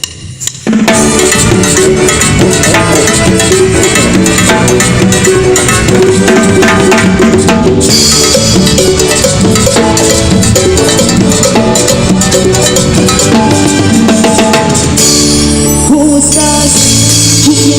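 Cumbia band playing loudly with timbales and drums over pitched instruments, kicking in together about a second in.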